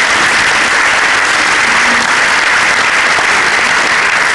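Audience in a hall applauding, a steady round of many hands clapping.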